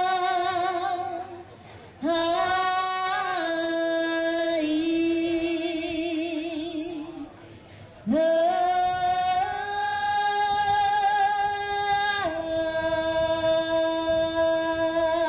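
A woman singing long held notes with vibrato, the pitch stepping up and down between notes; one phrase fades about a second and a half in, and fresh phrases start about two and eight seconds in.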